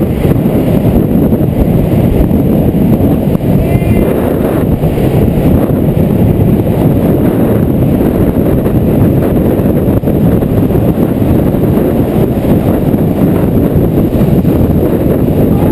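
Loud, steady wind roar buffeting the microphone of a camera riding along at speed on a downhill longboard run, mixed with the rumble of wheels on asphalt.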